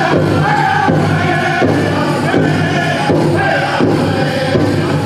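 Powwow drum group singing a chicken dance contest song in high voices over a steady beat on the big drum.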